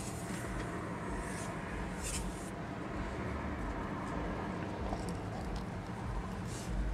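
Glass cleaner sprayed onto a car windshield and wiped off with a cloth, heard from inside the car: a few short hissing sprays in the first couple of seconds, then softer rubbing on the glass, over a steady low background hum.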